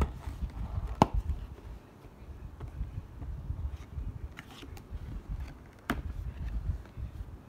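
Cardboard box being handled and its flaps pulled open: cardboard rubbing and scraping, with sharp taps about a second in and again near six seconds.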